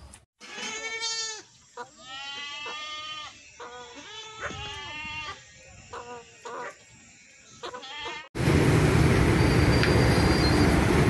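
Young goat kids bleating over and over, a mix of long and short cries. About eight seconds in, the bleating cuts off and a louder steady rushing noise takes over.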